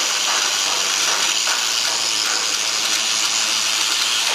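Angle grinder cutting into the steel of a Panzer IV tank chassis from underneath, a steady loud grinding hiss with no breaks.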